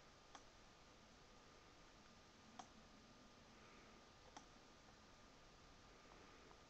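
Near silence: a faint steady hiss with a thin high tone, and three faint clicks about two seconds apart from a computer pointer being worked while mixer faders are adjusted.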